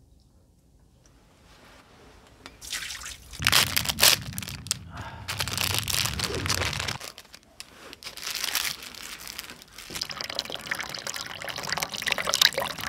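Water dripping and trickling into a mountain spring's ice-rimmed basin, with a plastic snack wrapper crinkling as it is opened. Quiet at first; the sounds begin a couple of seconds in and go on irregularly.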